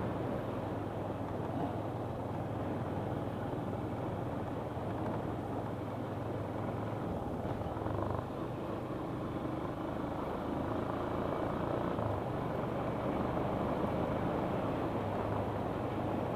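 Petrol two-wheeler's engine running steadily while ridden slowly over a rough, broken dirt road, with a constant low drone.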